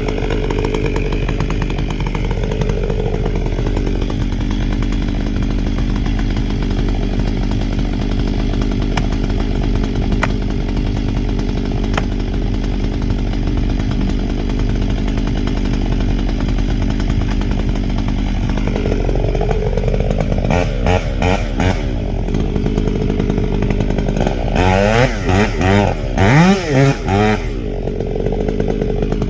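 Stihl gas chainsaw cutting into a poplar trunk for felling, the engine held steady under load. Near the end it is revved up and down in quick throttle blips.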